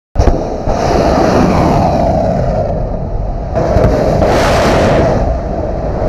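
Kalibr cruise missile launching from a warship: a sudden, loud rocket roar that starts abruptly and swells again about three and a half seconds in.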